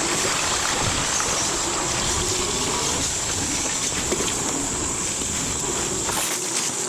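Tyres of a dual-motor e-bike rolling over rough, broken ground, a steady noisy rumble with wind buffeting the action camera's microphone that drops away about six seconds in. A steady high insect drone sits above it.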